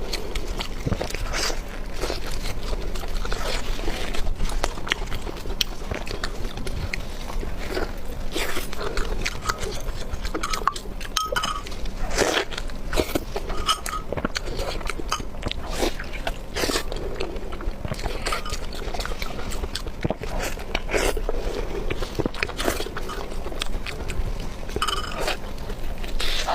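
Close-miked eating: a person biting and chewing food, with an irregular run of crunches and wet smacks.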